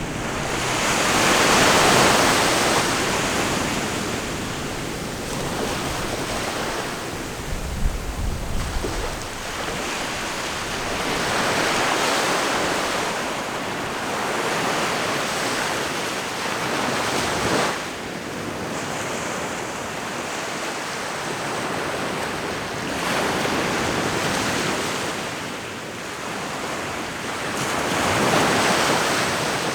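Ocean waves breaking and washing ashore, the surf swelling and fading every few seconds. There is a brief low rumble of wind on the microphone about eight seconds in.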